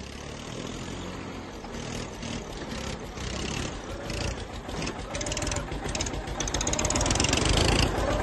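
Diesel engines of two tractors, a Massey Ferguson 1035 and an Eicher 241, labouring under full load as they pull against each other on a chain, getting steadily louder as the pull goes on.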